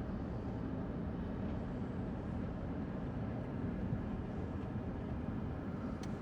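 Diesel engines of heavy snow-removal machinery (snowcat and backhoe loader) running, a steady low rumble with no distinct changes.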